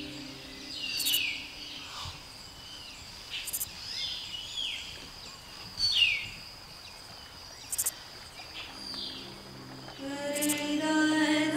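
Bird calls, a run of short whistled notes sliding downward, repeated every second or two over a steady high-pitched insect drone. Music fades in near the end.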